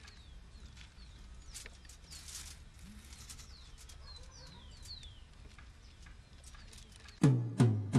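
Faint outdoor ambience with small birds chirping, short high falling calls scattered throughout, and a few faint clicks. About seven seconds in, louder plucked guitar and bass music starts suddenly.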